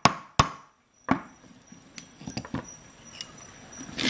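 Hammer driving a nail into a wooden block: two quick sharp blows at the start and one more about a second in, then a few light taps. A louder rustling clatter comes near the end.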